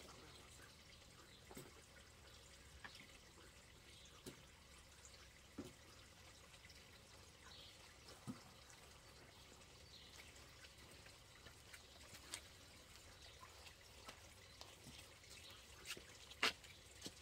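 Near silence with a scattering of faint, short clicks and ticks, one sharper knock near the end.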